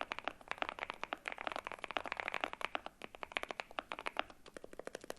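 Monsgeek M1 V3 keyboard with lubed Akko Rosewood linear switches being typed on quickly: a dense, steady run of keystrokes, with short pauses about half a second and three seconds in.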